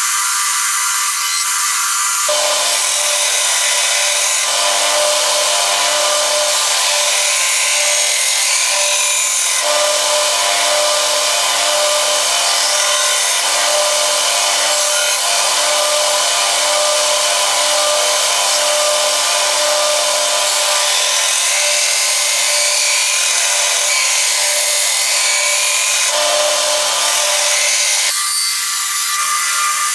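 Bench belt grinder running while a steel blade made from an old file is pressed against the abrasive belt, giving a steady grinding hiss over the motor's hum. The grinding grows stronger about two seconds in.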